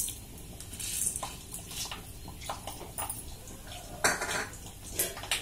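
A metal spoon clinking and scraping against a small bowl and the rim of a kadai as tempering spices (urad dal, mustard seeds, cumin, dried red chillies, curry leaves) are tipped into the oil. The clinks come irregularly, the loudest about four seconds in.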